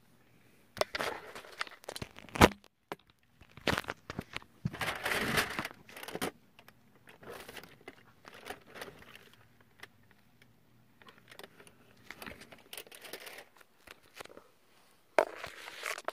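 Handling noise from a cardboard advent calendar and the camera being moved about close to the microphone: irregular crinkling and rubbing with sharp knocks, the loudest about two and a half seconds in.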